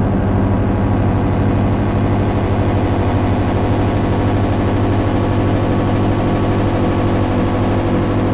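Lyra-8 organismic synthesizer drone played through a Noise Rumble pedal and T-Resonator filter: a dense, steady low drone of many stacked tones with a strong hum at the bottom and a fast flutter in the bass.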